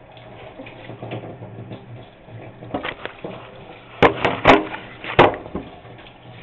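Bathtub tap running as a steady background, with a cluster of four sharp knocks and clatters between about four and five seconds in as the camera is handled and set down on a washing machine.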